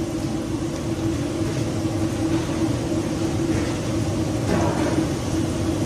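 Steady rushing rumble of a commercial gas burner flame under an iron kadai in which dried red chilies fry in oil, with a short louder noise about four and a half seconds in.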